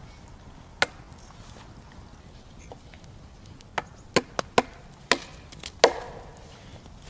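About seven sharp chopping strikes, irregularly spaced: one just under a second in, then a quick run of several in the middle, and a last one that rings on briefly.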